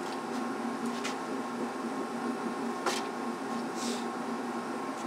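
Steady low machine hum with a couple of short clicks, one about a second in and a sharper one about three seconds in.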